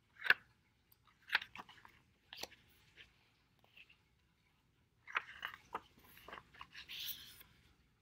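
Pages of a hardcover picture book being handled and turned: sharp paper crackles and rustles, a few separate ones in the first three seconds, then a busier run of them ending in a longer rustle near the end.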